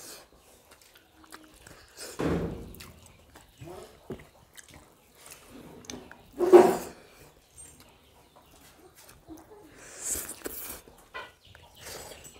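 Eating with the hands from steel plates: soft scrapes and clicks of fingers gathering biryani rice on the plates, and chewing. Two louder sounds stand out, about two seconds in and, loudest, about six seconds in.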